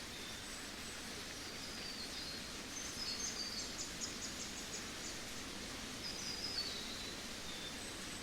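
Outdoor nature ambience: a steady background hiss with a bird singing short, high, descending phrases every couple of seconds, and a quick run of about seven chirps around three to four seconds in.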